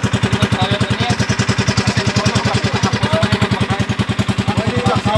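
Small motorboat engine running steadily at an even pace, a regular putt-putt of about a dozen beats a second.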